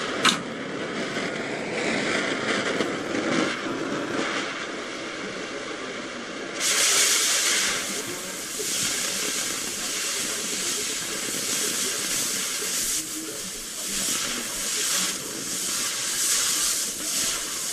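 Steady hiss of a cutting torch cutting steel for the fire pit pieces, getting louder and brighter about six and a half seconds in.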